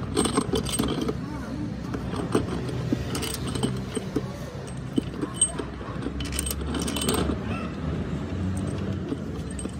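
Metal parts and tools clinking and jangling in short, irregular clicks, over a steady low hum.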